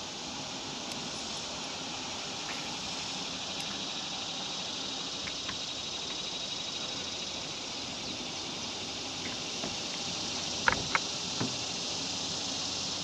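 Steady high buzzing of insects, with two sharp clicks close together and a softer one near the end.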